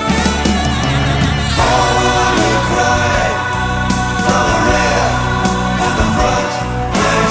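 A slow rock ballad played live: choral backing vocals sing over sustained keyboards and bass, swelling into a louder, fuller chorus about a second and a half in.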